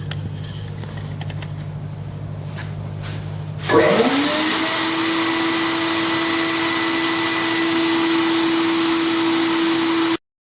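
Media-blasting cabinet: a steady low hum, then about four seconds in the blast gun opens with a loud, even hiss of air and abrasive and a tone that rises and settles. The hiss cuts off abruptly near the end.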